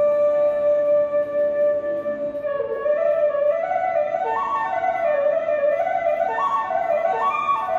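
Background music: a single melody line holds one long note, then moves up and down in steps from about two and a half seconds in.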